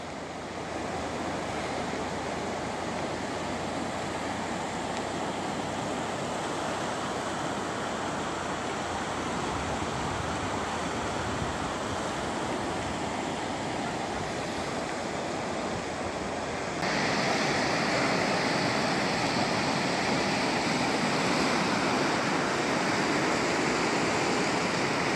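Floodwater rushing in a swollen river, a steady noise of fast-moving water. About two-thirds of the way through it becomes suddenly louder and hissier as fast, foaming water churns over a flooded road.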